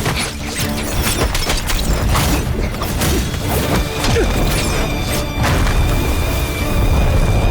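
Animated fight scene sound: background music under a dense run of sound effects, with repeated hits, crashes and booms. A steady high ringing tone enters about halfway through.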